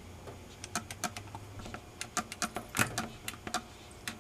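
A run of irregular light clicks and small rattles, with a faint low hum that fades out about two seconds in.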